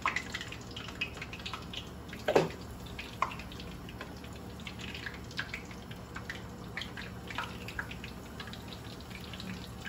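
Chicken pieces frying in a pot of hot oil: scattered crackles and pops, with one louder sharp sound about two and a half seconds in.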